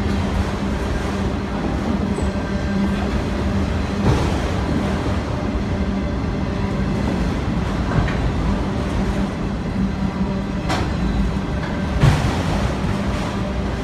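Train rolling by: a steady rumble with a constant low hum, broken by four sharp clacks, the loudest near the end.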